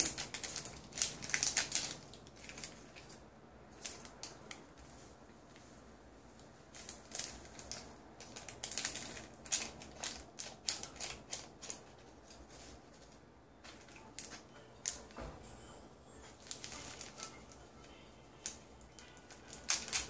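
Paper gelatine packets being torn open, crinkled and shaken out by hand over a plastic bowl: a run of irregular sharp rustles and crackles with a few short pauses.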